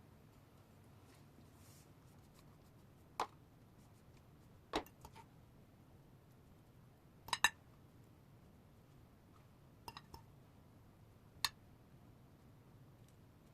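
Kitchenware being handled: a handful of light clinks and taps, some in quick pairs, spread over several seconds against quiet room tone.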